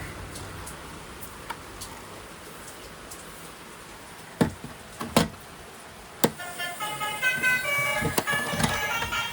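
Three sharp knocks, like hard plastic being handled, followed by a melody of bright, stepping tones that starts about two-thirds of the way in.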